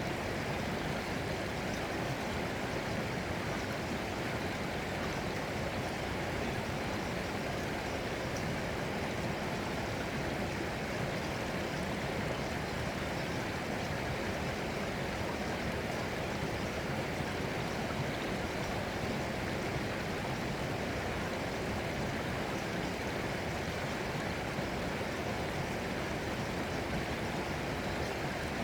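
Flowing water running steadily, an even rushing sound like a stream, with no breaks or changes.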